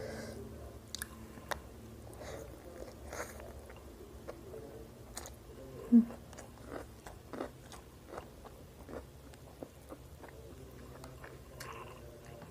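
Close-up chewing and eating: soft mouth smacks and small clicks of someone chewing rice and tender mutton curry, with one louder short sound about six seconds in.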